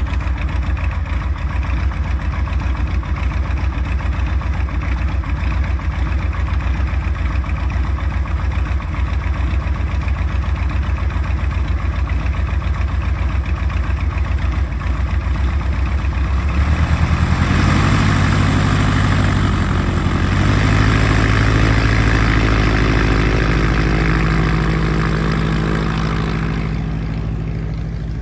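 Rans S21 light airplane's engine and propeller running steadily at low power, then the throttle opens about 17 seconds in and the engine rises in pitch and runs louder.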